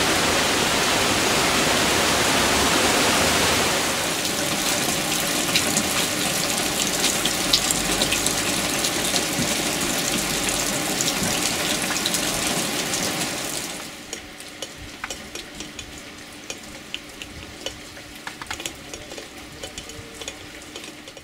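Heavy summer rain. First a steady rush of water spilling from a drain outlet, then, about four seconds in, rain pelting a flooded pavement with many sharp splashes. About 14 seconds in it turns much quieter: rain and single drips falling on leaves.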